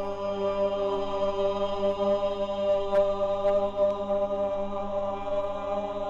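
Chanted vocal drone on the soundtrack: voices holding long, steady notes together, with a faint click about three seconds in.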